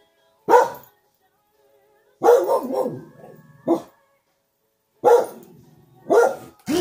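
Dog barking in single barks a second or more apart, with a quick run of three around two seconds in.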